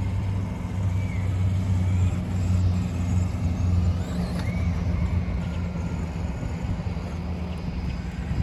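Electric RC buggy with a 550-size motor driving on asphalt, its motor whine rising and falling in pitch with the throttle, about a second in and again about four and a half seconds in. A low steady rumble underlies it, strongest in the first half.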